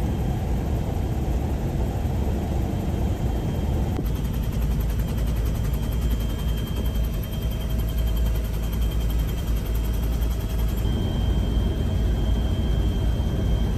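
Helicopter cabin noise in flight: a loud, steady, low rotor throb with a thin steady whine above it.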